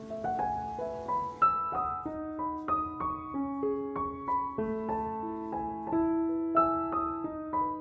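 Background music: a gentle piano melody of single notes over held lower notes.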